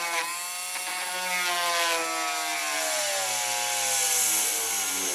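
Handheld rotary tool drilling a pilot hole in a plastic drum shell, its motor whine sinking steadily in pitch as it bogs down under load: the speed is set too low for the job.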